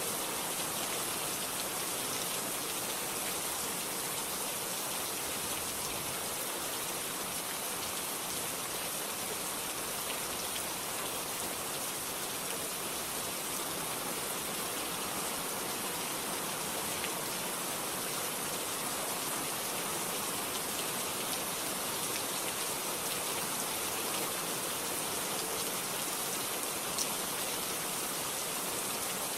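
Steady rain falling without thunder, an even hiss with scattered drops pattering on a surface.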